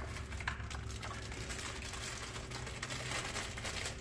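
Light clicking and rattling of small steel cap screws and metal parts being handled, over a steady low hum.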